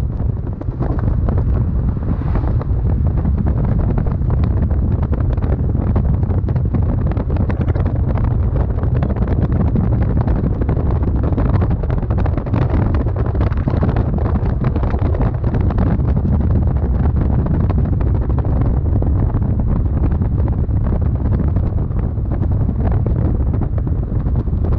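Wind buffeting the microphone: a steady, loud low rumble that flutters constantly.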